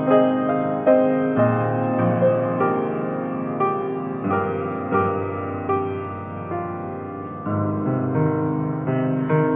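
Slow, gentle piano music: single notes struck over held chords, about one or two notes a second.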